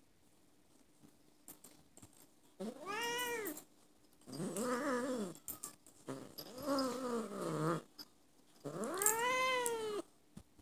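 Ginger tabby cat meowing four times, each a drawn-out call of a second or more. The first and last rise and fall in pitch; the middle two are lower and wavering, like a complaining yowl.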